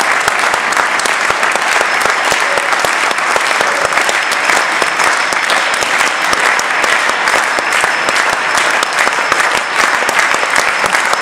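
Concert-hall audience applauding steadily: a dense, even clapping of many hands.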